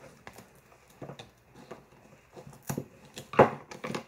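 Handling noises from undressing a fashion doll: fabric rustling and small clicks and taps of plastic, with a sharper knock about three and a half seconds in.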